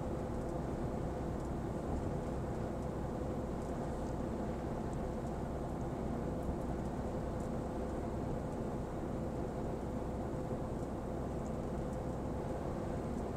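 Steady drone of a Mercedes-Benz truck's engine and tyres, heard inside the cab while cruising at highway speed, with a steady hum.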